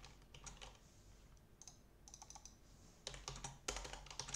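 Typing on a computer keyboard: a few scattered faint keystrokes, then a quicker run of keys near the end.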